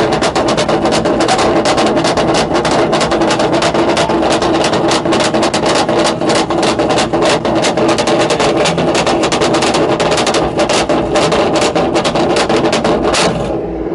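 Ford Mustang's exhaust with the engine held at a steady high rev, a constant drone under rapid-fire crackling pops. It cuts off suddenly about a second before the end.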